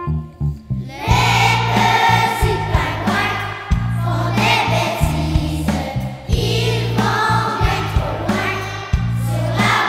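Children's choir singing a Christmas song over an instrumental accompaniment with a steady bass line; the singing comes in about a second in after a short break.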